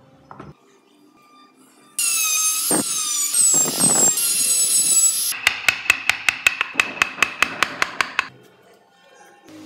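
A handheld rotary tool (Dremel-type) whines at high speed while cutting grille slots into wood, its pitch dipping as the bit bites. It is followed by a quick run of sharp taps, about five a second for some three seconds, from a mallet striking a chisel to carve the wood.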